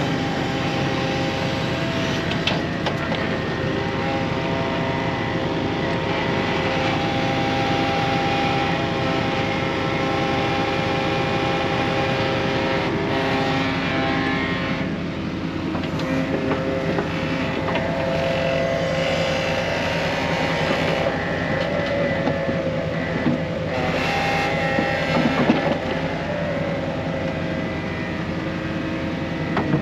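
An engine running steadily, with small shifts in pitch and load and a brief surge about five seconds before the end.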